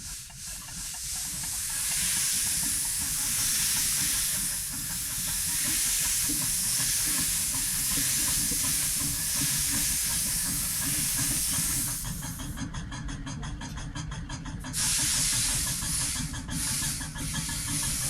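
Steam locomotive venting a loud, steady hiss of steam over a low rumble. About twelve seconds in the hiss drops away for a few seconds, leaving a quick run of knocks, then the hiss comes back.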